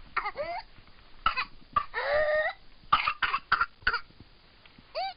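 Pertussis (whooping cough) coughing fits: runs of quick coughs, each followed by a drawn-in gasp for air that makes a high whoop rising in pitch. The longest whoop comes about two seconds in, and a shorter one near the end.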